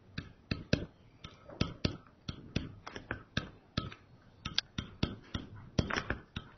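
Pen stylus tapping and clicking on a tablet PC screen during handwriting: a run of irregular sharp clicks, about two or three a second.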